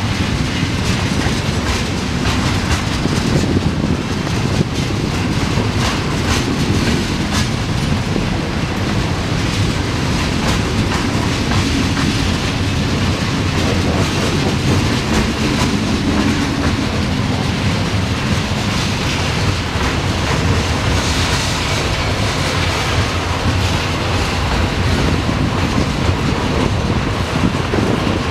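Freight train of tank cars rolling past at a level crossing: a steady rumble with the clickety-clack of steel wheels over the rail joints.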